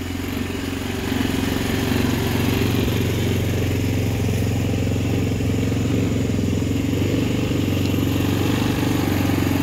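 A small ATV engine idling steadily.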